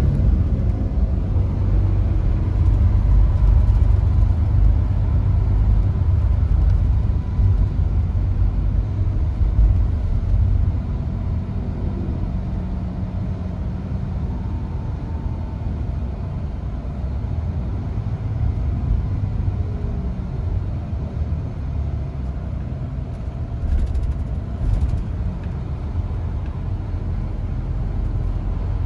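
Cabin noise inside a Mercedes-Benz Tourismo coach on the move: a steady low-pitched running noise from the engine and road, easing slightly about seven seconds in.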